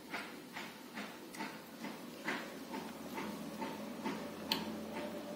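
Close-up chewing of pork and rice, wet mouth sounds repeating about two to three times a second, with one sharper click about four and a half seconds in.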